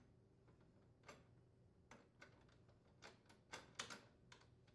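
Faint scattered clicks and taps of a metal mounting pin being pushed through a refrigerator's front wheel assembly and frame bracket, about seven small ticks with a cluster near the end, over near silence.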